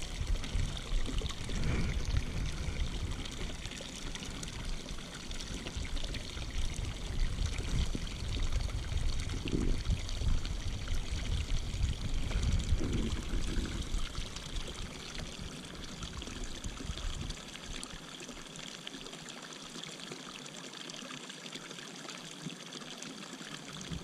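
Water pouring steadily from an inlet pipe into a pond, a continuous splashing hiss. A low uneven rumble under it drops away about two-thirds of the way through.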